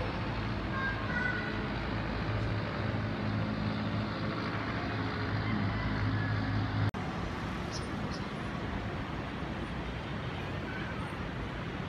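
Steady hum of distant road traffic from a busy road far below, with a low engine drone. The drone stops with a sudden short break in the sound about seven seconds in, and the traffic noise carries on after it.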